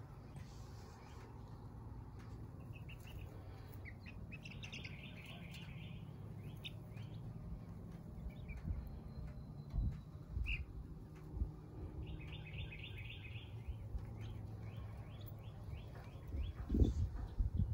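Young chickens peeping, with a couple of rapid trilling runs of short repeated chirps, over a steady low rumble; a few soft thumps near the end.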